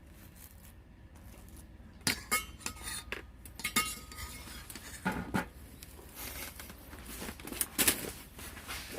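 Metal cutlery clinking and scraping against dishes: a run of sharp taps with a short metallic ring, starting about two seconds in.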